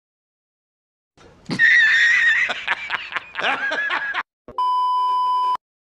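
Edited-in meme sound effect of a man laughing: loud, high-pitched cackling for about three seconds, starting about a second in. A steady electronic beep lasting about a second follows near the end.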